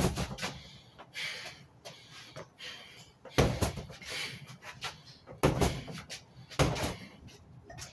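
Gloved punches landing on a freestanding punching bag: irregular dull thuds, several coming in quick pairs, with quieter gaps between the combinations.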